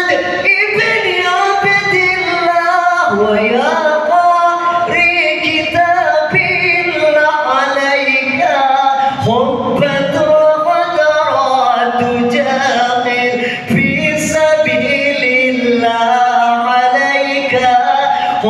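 A man singing a sholawat, an Arabic devotional song in praise of the Prophet Muhammad, into a microphone, with long, ornamented held notes that glide up and down.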